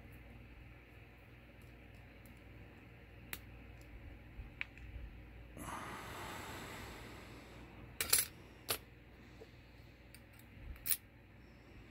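Small metal clicks and clinks from an Evva EPS lock cylinder being taken apart by hand, loudest in a pair about eight seconds in and again near the end. A brief scraping rustle lasts over a second around the middle.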